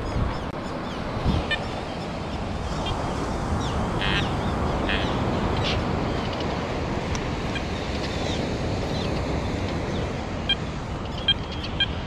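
American oystercatchers giving short, sharp piping calls again and again over a steady rushing background. These are the birds' alarm calls as they dive-bomb an intruder near their colony.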